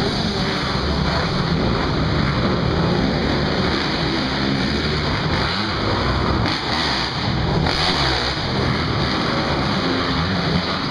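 Motocross dirt bike engines racing around a dirt track, their pitch rising and falling as riders rev, accelerate and shift.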